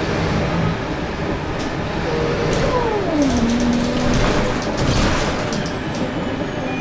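Cabin noise of a Scania K280UB city bus under way: steady engine and road rumble, with a whine that falls in pitch about three seconds in and then holds at a lower note, and a few light rattling clicks.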